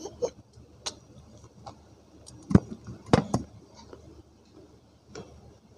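Crunchy bites and chews of dried multani mitti (fuller's earth clay), close to the microphone: a handful of sharp cracks, the loudest two about two and a half and three seconds in.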